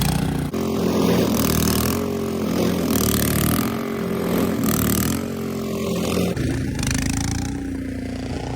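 An engine running steadily, its pitch wavering slightly up and down, with repeated patches of hissing noise over it.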